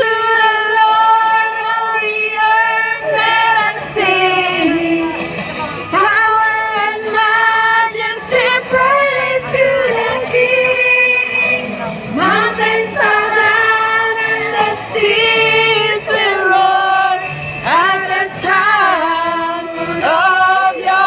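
A group of women singing a Christian praise song together over a musical accompaniment, amplified through small portable speakers.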